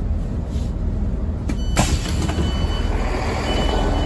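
A train standing at the platform, its engine running with a low steady rumble. A sudden clatter comes about two seconds in, and after it a faint high beep sounds on and off.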